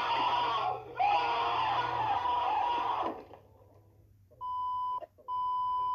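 A man screaming loudly, with a short break for breath about a second in; the scream stops about three seconds in. Then a TV colour-bar test tone beeps twice, a short beep and then a longer one.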